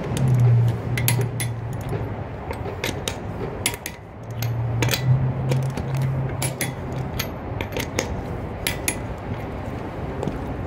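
Torque wrench on a car's lug nuts, giving a string of sharp metallic clicks as the nuts are tightened to 100 foot-pounds. A low hum comes and goes in the background.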